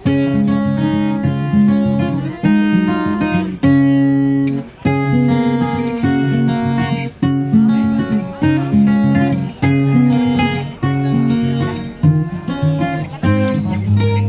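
Background music: strummed acoustic guitar chords with a steady rhythm.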